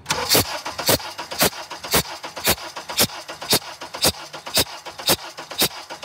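Engine cranking on its starter, with a sharp, even click about twice a second. A compression loss has been created in one cylinder for a compression test.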